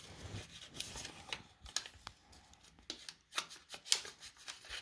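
Faint, scattered clicks and rustles of small objects and paper being handled, about seven or eight separate short sounds.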